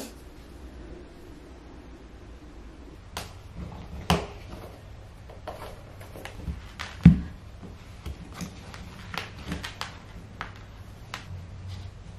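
A pair of white sneakers dropped one at a time onto a wooden floor: two thumps about three seconds apart, the second the louder. Between and after them come light scuffs and taps as feet go into the shoes and the laces are handled.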